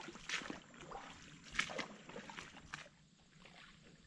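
Footsteps wading through shallow swamp water over mud: an irregular run of splashes and sloshes, dying down in the last second.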